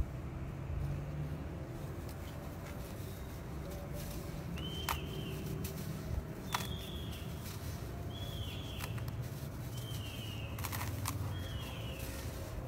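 A dry sand-cement block crumbled between the hands, with soft crackling and powder falling into a bucket over a steady low rumble. From about a third of the way in, a bird calls five times, a short falling chirp every second and a half or so.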